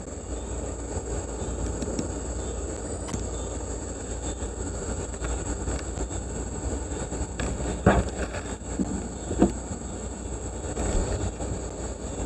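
Camera and clip-on microphone being handled and repositioned: a steady low rumble with a few short knocks about eight and nine and a half seconds in.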